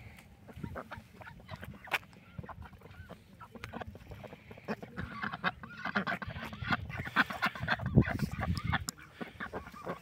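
A flock of domestic ducks, mallard-type and white ducks, quacking in many short calls that grow busier about halfway through.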